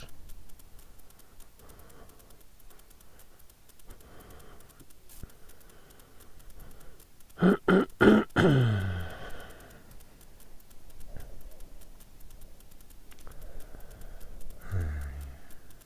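A man clearing his throat in a few short, loud coughs about halfway through, against faint background noise.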